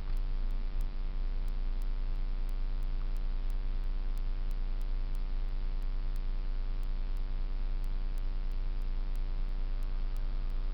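Kenworth T660 semi-truck's diesel engine running steadily at a constant speed, a low hum with a stack of steady tones and no change in pitch; the owner takes its turbo to be making a bad sound.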